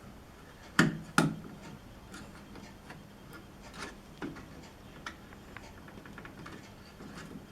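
Cable connectors being unplugged from an LCD TV's main board by hand: two sharp clicks about a second in, then light scattered clicks and rubbing.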